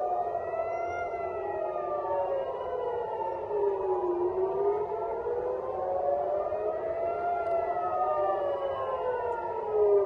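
Several civil-defense air-raid sirens wailing at once, out of step with each other, each tone slowly rising and falling over a few seconds: an alert for an incoming missile.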